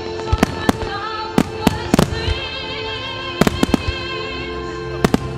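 Firework shells bursting in a starmine display, sharp bangs coming singly and in quick clusters, over music played along with the show.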